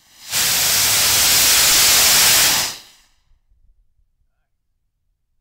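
Sugar rocket motor burning flexi fuel (potassium nitrate, powdered sugar and corn syrup) on a static ground test stand: a loud, steady hiss that starts sharply, holds for a little over two seconds, then tails off. A clean, full burn, a really great ground test.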